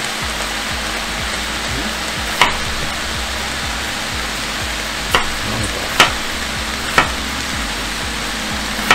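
A chef's knife cutting potato on a wooden cutting board, its blade striking the board in five sharp clicks at uneven intervals. Under it runs the steady sizzle of onions and carrots frying in a cast-iron Staub pot.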